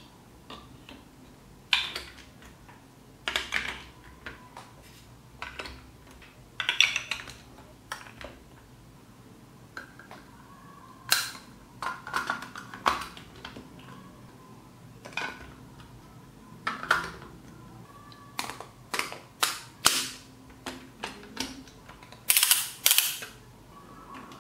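Large plastic building blocks being handled and snapped together, a series of irregular sharp clicks and plastic knocks, some in quick pairs and clusters.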